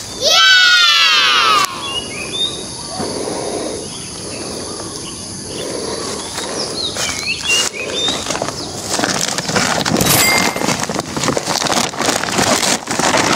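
A loud sliding tone that falls in pitch in the first second and a half. After it come rustling and crackling of dry leaves and a plastic sack as a fallen durian is handled and bagged, busiest in the last few seconds.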